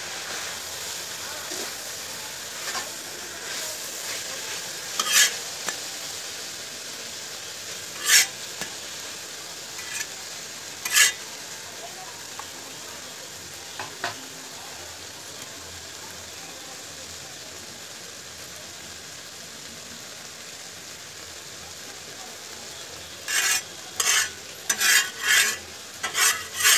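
Steady frying sizzle on a hot iron tawa, with a few single sharp clicks of a steel spatula against the pan. Near the end comes a quick run of spatula scrapes and taps as oil is spread across the pan.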